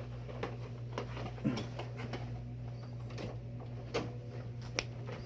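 Small plastic minifigure parts being handled and snapped together, a few short faint clicks spread out over a steady low hum.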